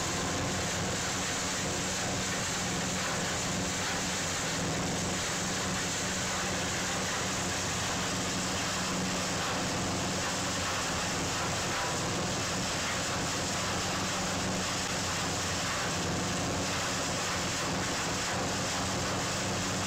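Engine of a piece of heavy machinery running steadily, with a constant low hum under a wash of mechanical noise.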